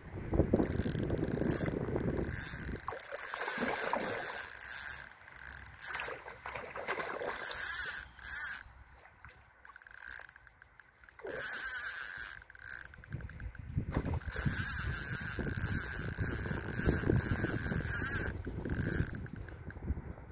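Spinning reel ratcheting as its drag gives line and its handle is cranked while a hooked fish runs, in uneven spells with short lulls. Wind rumbles on the microphone at the start and again in the second half.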